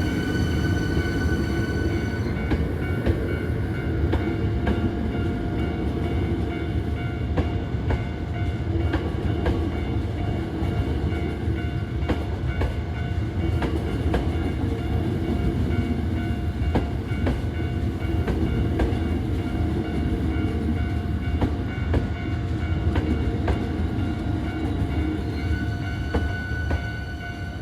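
Hankyu electric train running at close range: a steady heavy rumble with wheel clacks over the rail joints, and thin steady whining tones on top, the highest of which drop away about two seconds in.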